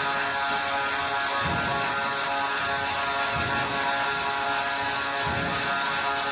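Robotic welding machine running: a steady hiss over an electrical hum, with a low pulse about every two seconds.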